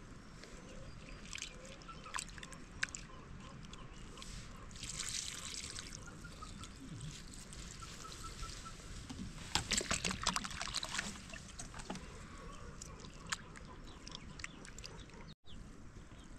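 Liquid pouring and trickling amid scattered light clicks of kitchen work, with a cluster of sharp knocks about ten seconds in.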